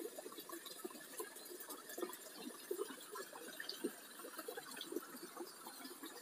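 Faint trickling, bubbling water: many small irregular plinks and gurgles over a low hiss.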